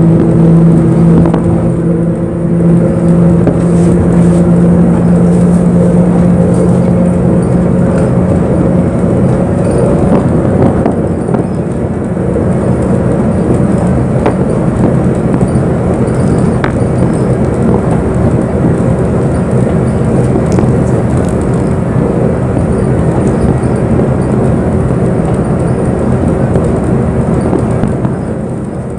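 Inside a moving bus: engine drone and road rumble. A steady low engine hum fades out after about nine seconds, and a higher hum comes in near the middle.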